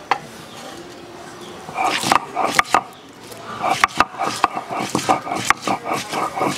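Stone roller of a shil-nora grinding stone crushing garlic cloves on the stone slab: repeated knocking and grinding strokes in quick clusters, starting about two seconds in.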